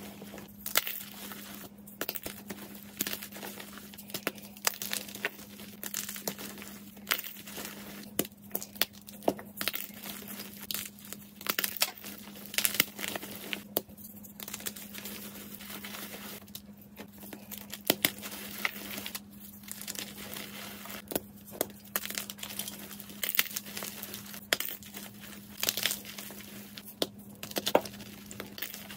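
Hands crushing and crumbling blocks of fresh white gym chalk: a dense, irregular dry crunching and crackling, with a block now and then snapped in two. A steady low hum runs underneath.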